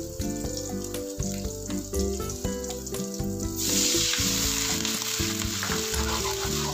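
Water poured into a hot wok where dried shrimps are frying in oil, setting off a sudden loud hiss and sizzle a little over halfway in that keeps going. Light background music plays throughout.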